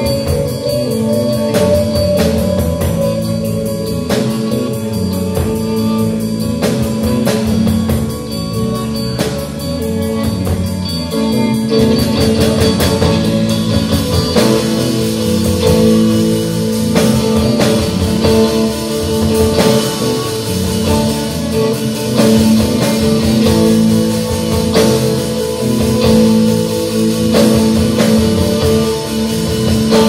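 Instrumental slowcore rock played live by a trio with no vocals: sustained Fender Stratocaster electric guitar notes over bass guitar and a drum kit. The band grows fuller and brighter about twelve seconds in, with more cymbal.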